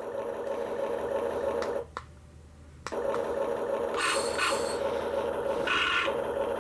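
Small electric gear motors of a 1/24-scale Caterpillar RC construction vehicle working its shovel: a steady whirring drone that stops for about a second, then starts again, with two short raspy bursts near the end.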